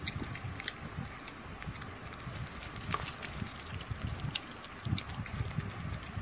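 Kittens licking and lapping at a chocolate-coated ice cream bar: a run of small, irregular wet smacking clicks, with low uneven bumping underneath.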